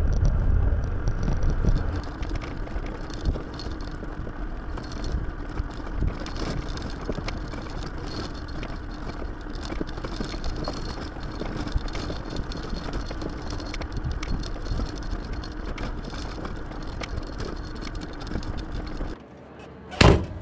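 Timber truck running, a steady engine hum under constant rattling and clatter, louder for the first couple of seconds. Near the end the sound cuts off suddenly, followed by one sharp knock.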